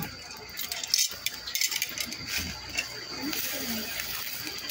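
Metal tongs clinking and scraping on the wire mesh of a charcoal grill as slices of meat are turned, a few scattered clicks.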